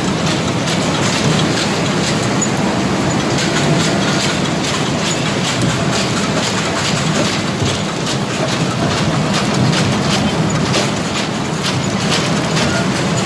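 Screw conveyor carrying palm kernels along its trough: a steady mechanical rumble with dense rattling and clicking of kernels against the turning steel auger.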